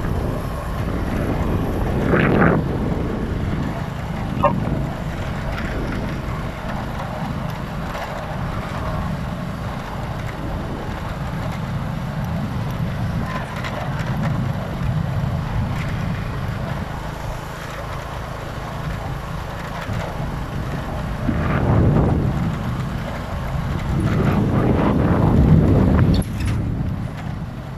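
Steady wind rush on the microphone and engine rumble from a vehicle moving along a road. The sound swells louder near the end as an oncoming motorcycle with a sidecar passes.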